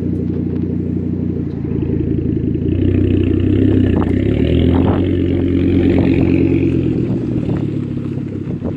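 Turbocharged 2.5-litre inline five-cylinder of a 2005 Volvo S60R, straight-piped with the catalytic converter deleted and no resonator. It runs steadily, revs up about two seconds in and holds level for several seconds as the car takes off, then eases off near the end as it drives away.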